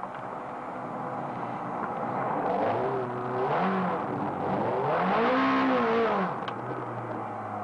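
Ferrari V8 engine heard from inside the cabin, revving up and falling back twice while the car is driven hard; the second rise, about five seconds in, is the louder.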